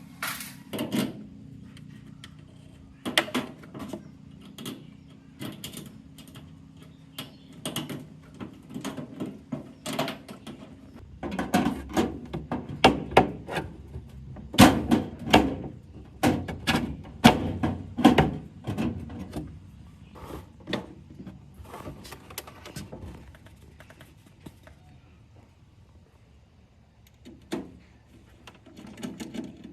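Irregular knocks and clunks of hand work, coming thick and fast in the middle and thinning out near the end, over a low steady hum in the first third.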